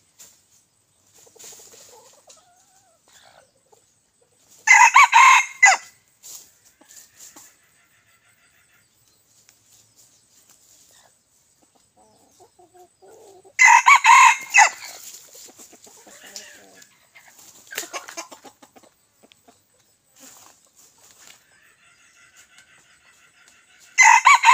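Young red junglefowl cockerels, eight to nine months old, crowing: three loud, short crows about nine to ten seconds apart, about five seconds in, near the middle and at the end, with fainter clucking and calls between.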